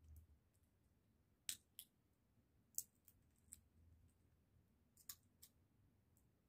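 Irregular sharp clicks from sunflower seeds being shelled by hand, the hard shells cracking and tapping on a glass tabletop. There are about seven clicks, some in quick pairs, the sharpest near the middle.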